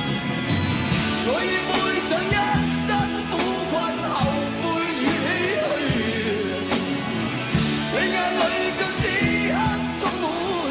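A rock song performed live by a band: a man sings lead over guitar and steady drum hits.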